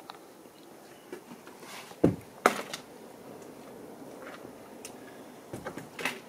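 Footsteps and knocks on wooden boards as a cabin door is opened and walked through. The loudest are two sharp knocks about two seconds in, and there is another near the end.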